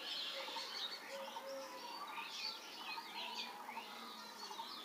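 Several birds chirping faintly in the background, many short high calls overlapping one another.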